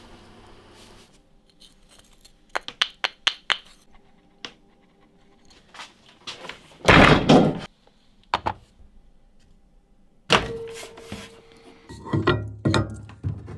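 Dry sand trickles from a plastic jug into a metal tray for about the first second. A run of light clicks follows, then one heavy thunk about seven seconds in as a microwave oven is set down on a worktop. Near the end come knocks and clatter as wooden blocks are placed inside the microwave.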